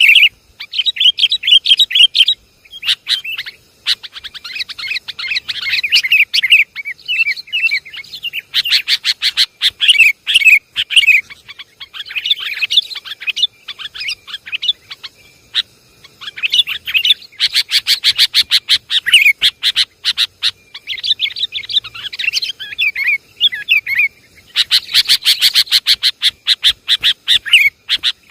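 Sooty-headed bulbul (kutilang) calls played as a bird-lure recording: repeated bursts of loud chattering chirps, some with fast rattling notes, broken by short pauses.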